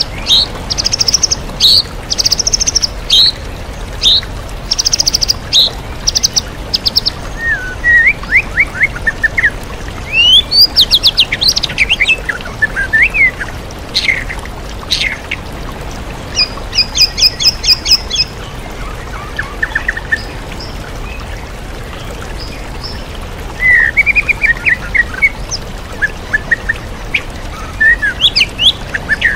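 White-rumped shama (murai batu) singing in short, varied phrases of rapid repeated whistles, sweeps and trills, with a brief pause about two-thirds of the way through. A steady waterfall rush runs underneath.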